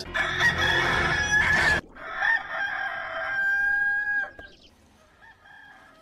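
Stock rooster crow sound effect (Hollywoodedge "Rooster 2 Crow"), a cock-a-doodle-doo played twice. The first crow, with other sound behind it, is cut off abruptly about two seconds in. A cleaner crow of about two seconds follows and ends on a falling note.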